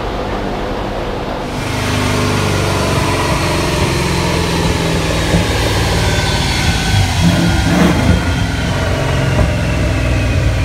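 1989 Ford Mustang GT's 5.0-litre V8 running on a chassis dyno, getting louder about a second and a half in and holding steady. A faint high whine falls slowly in pitch through the second half.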